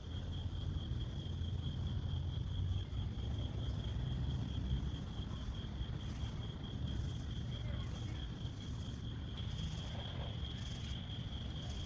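Insects, most likely crickets, trilling continuously at one high pitch, with short higher buzzes from another caller repeating about once a second in the second half, over a low steady rumble.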